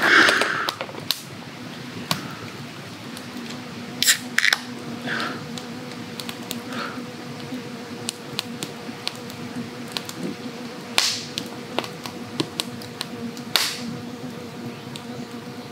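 Wood campfire crackling in a brazier, with irregular small snaps and a few louder pops. A short burst of noise comes right at the start, and a faint steady low hum runs underneath.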